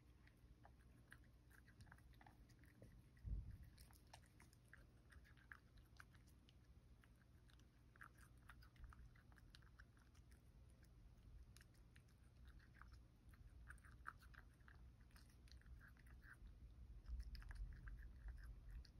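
Faint sounds of a cat chewing soft boiled carrot and shiitake with bonito flakes: scattered small wet clicks and smacks. A single low thump comes about three seconds in, and a low rumble grows near the end.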